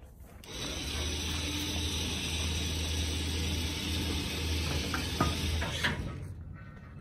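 Electric trailer winch running steadily under load, pulling a truck up the ramps onto a car-hauler trailer: a low motor hum with a hiss over it, starting about half a second in and cutting off sharply around six seconds in, with a couple of clicks just before it stops.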